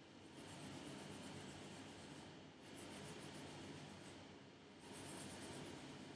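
Faint scratchy brushing of a gel nail brush painting a coat of glitter gel onto a nail tip, in three slow passes.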